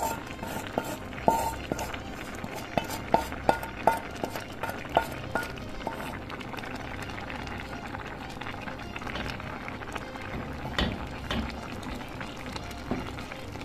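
Rice simmering in water in a pot, with a run of sharp clinks in the first half as a utensil scrapes and taps fried meat and onion off a bowl into it, one louder knock about two-thirds in, and a wooden spatula stirring the rice near the end.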